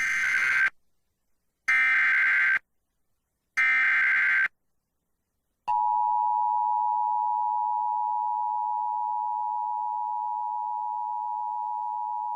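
Emergency Alert System activation: three short bursts of the digital SAME header data screech, about a second apart, then the steady two-tone EAS attention signal starting a little over halfway through. It heralds a National Weather Service severe thunderstorm warning.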